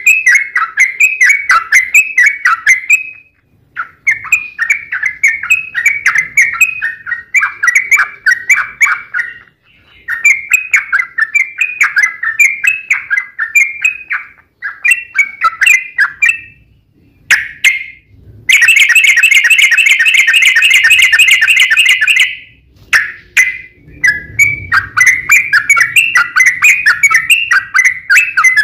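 Yellow-vented bulbul (trucuk) song: rapid runs of bubbly, chattering notes in phrases separated by short pauses. About two-thirds of the way through comes one long unbroken rapid trill of about four seconds, the 'long roll' of an excited, combative bulbul song.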